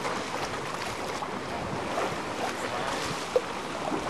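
Water rushing along the hull of a sailing yacht under way, with wind buffeting the microphone. One short, sharp knock about three and a half seconds in.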